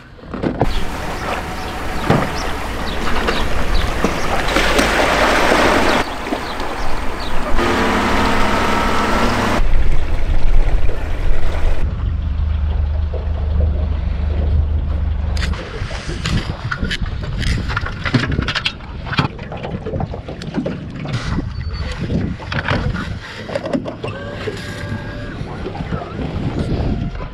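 Small jon boat with a Mercury outboard motor running on the water, wind rushing over the microphone, in a string of short clips that change abruptly. Later come scattered knocks of gear being handled in the boat.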